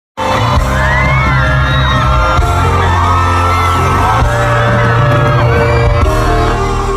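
Loud pop music from a concert sound system with a heavy, steady bass during a concert soundcheck, with a crowd of fans screaming and whooping over it.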